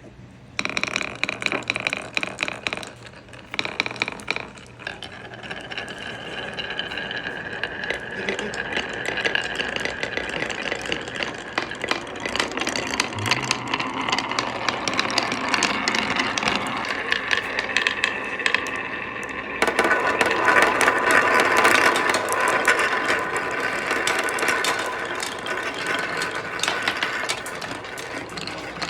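Many balls rolling and clattering down a marble-run track: a dense rattle of clicks over a steady rolling rumble with a ringing tone, getting louder about two-thirds of the way through.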